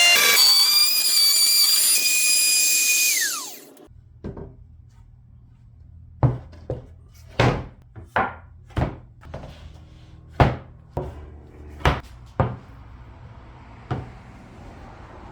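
A power tool runs with a high whine, then spins down and stops about three seconds in. After it, about a dozen sharp wooden knocks and clacks come at irregular intervals over a low hum.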